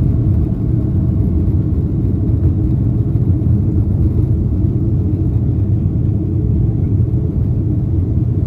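Boeing 767 jet engines at takeoff thrust, heard from inside the passenger cabin as a steady, loud low rumble during liftoff and the initial climb.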